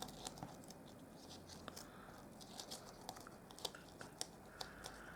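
Faint handling of small die-cut paper pieces on a card: scattered light ticks and soft rustles, a few sharper ticks in the second half.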